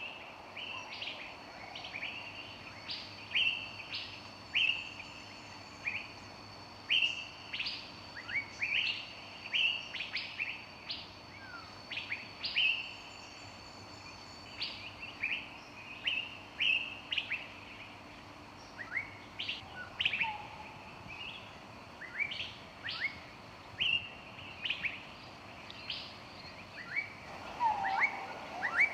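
Several birds chirping in a forest: short, sharp, sweeping notes repeated in quick succession, with a lower whistled note near the end.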